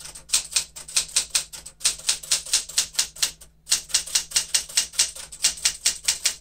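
Keys of a 1975 Smith-Corona Galaxie Twelve manual typewriter striking the paper in a fast, steady run, about five or six strokes a second, with a brief break about three and a half seconds in.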